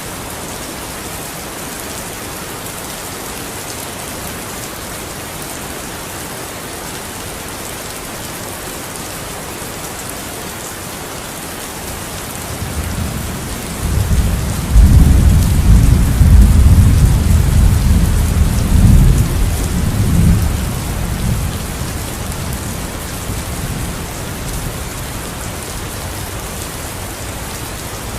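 Steady rain falling, with a roll of thunder that builds about halfway through, rumbles loudly for several seconds and fades away.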